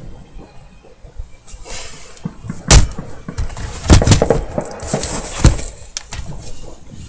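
New Year fireworks going off: several loud bangs, the biggest about two and a half seconds in and around four seconds in, with smaller pops and a hissing crackle between about four and five and a half seconds in.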